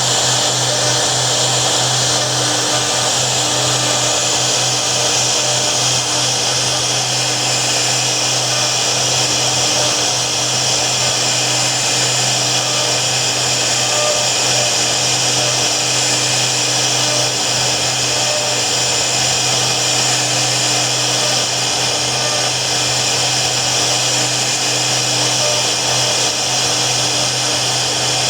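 CNC router spindle running steadily under cut, a constant machine whine over a low hum with no pauses.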